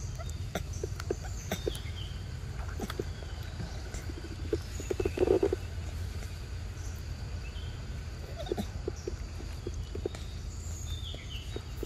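Macaque chewing and smacking on a ripe mango close to the microphone: scattered wet clicks and smacks, with a louder run of smacking about five seconds in, over a steady low rumble.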